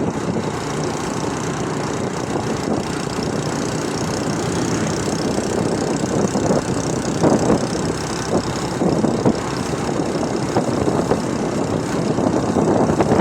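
Vehicle engine running steadily in slow traffic, with the rumble and hiss of surrounding traffic and a few brief louder moments.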